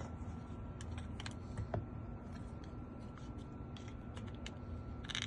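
Scattered light clicks and scrapes of small metal parts as the cover is worked off a Hyundai Sonata door lock cylinder, with a faint steady hum underneath.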